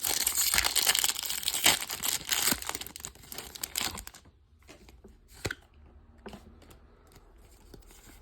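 Foil wrapper of a Pokémon booster pack being crinkled and torn open, dense crackling for about the first four seconds, then a few soft rustles and clicks as the cards come out.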